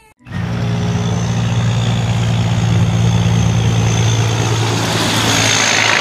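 Semi-trailer truck driving on the road: a steady low engine drone with tyre and wind noise, the hiss swelling near the end.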